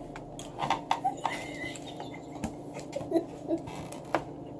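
Quiet, close-up eating sounds: chewing and lip-smacking, with scattered small clicks.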